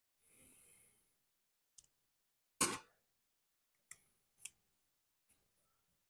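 Small clicks and taps of a chainsaw carburetor and a screwdriver being handled during reassembly, with one louder knock about two and a half seconds in. A short soft hiss comes near the start.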